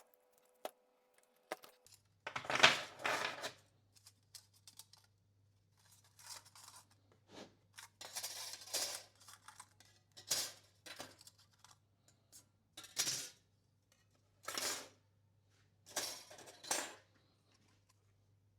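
A series of short rustling, scraping bench-work sounds, about eight of them, over a steady low hum that starts about two seconds in.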